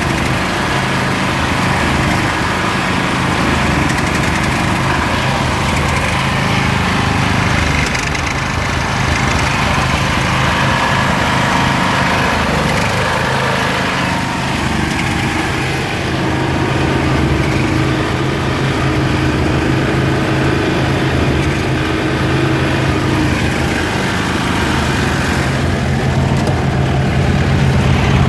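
1983 John Deere 210 garden tractor's 16 HP Kohler K341 single-cylinder cast-iron engine running steadily.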